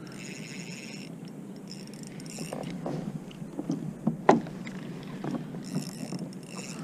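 Water splashing and light knocks against a kayak as a small cod is brought in on rod and reel, with a brief high whirring in the first second; the sharpest knock comes a little past the middle.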